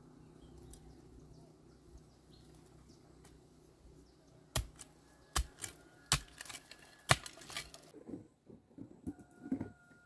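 Several sharp knocks or taps about a second apart, followed by a run of softer, duller thuds near the end.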